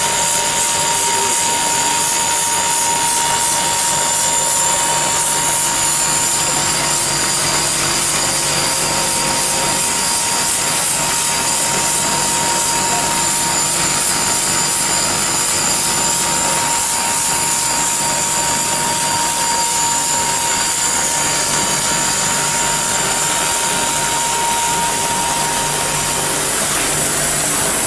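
Steady running noise of an automatic pen-barrel printing and finishing machine, with motors and rotating wheels going, and a constant thin whine that holds one pitch throughout.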